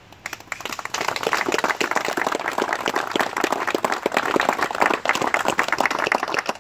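A small crowd clapping hands in applause. It starts with a few claps just after the start and builds within about a second into dense, steady clapping.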